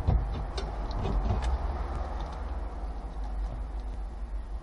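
A few faint clicks and knocks of hands handling parts and wiring in a car's stripped dashboard area, mostly in the first second and a half, over a steady low hum.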